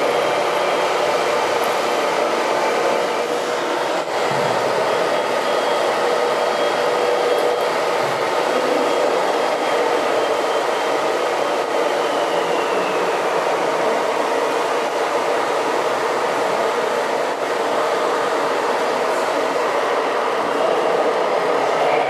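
Steady whine and hum of radio-controlled model trucks' electric motors and gearboxes driving, with a high tone that falls slightly about halfway through.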